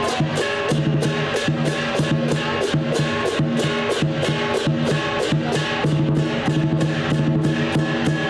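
Lion dance percussion band playing: drum beats with clashing cymbals and ringing gongs, an even beat of about three to four strokes a second over sustained metallic ringing.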